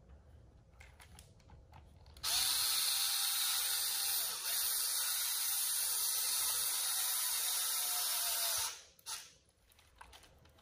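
Electric hex driver running steadily for about six seconds, with a brief dip partway through, driving hex screws into an RC truck's front bumper.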